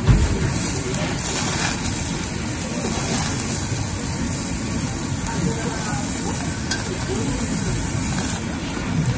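Thin slices of beef sizzling steadily on the wire mesh of a small tabletop yakiniku grill as metal tongs turn them, with a dull thump right at the start.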